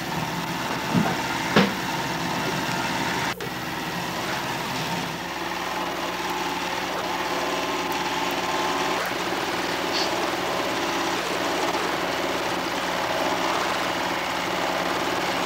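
Steady mechanical whir with a low hum from a small motor running evenly, cutting out for an instant about three seconds in.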